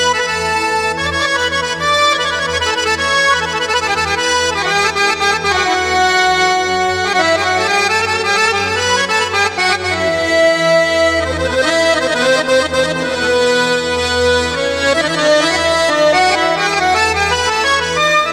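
Accordion voice from an Arabic sound pack played on a Yamaha PSR-A5000 arranger keyboard: a busy, ornamented melody over a steadily pulsing bass accompaniment.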